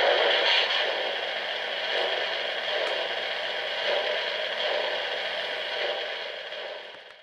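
A steady rushing hiss with no tone or beat, dropping a little about a second in and fading out over the last second.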